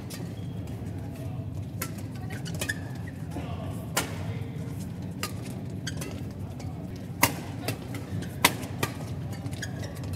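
Badminton rally: a string of sharp racket strikes on a feather shuttlecock, the loudest about seven and eight and a half seconds in, over the steady low hum and murmur of an arena.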